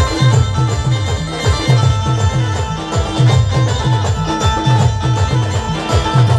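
Band music: held melody notes over a steady beat of deep drum hits, each falling in pitch, about two a second.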